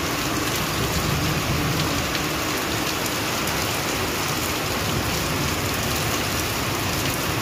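Steady rain falling on a concrete rooftop terrace, an even hiss of drops without a break.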